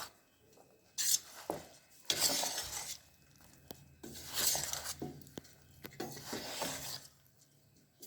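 A spoon scraping and clinking in a bowl as chicken pieces are turned through a spice paste, in about six separate strokes with short pauses between them.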